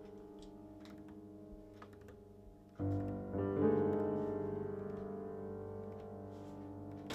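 Background piano music: a soft held chord fading away, then a louder chord struck about three seconds in that slowly dies down.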